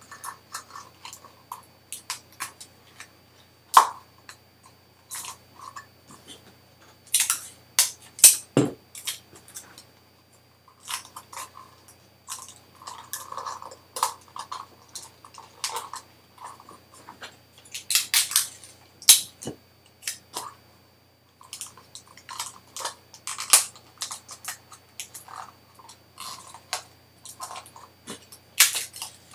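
Close-up handling noise of a rubber balloon being stretched over the rim of a cut-down plastic cup: irregular clicks, crackles and rubbing as the fingers work the balloon taut.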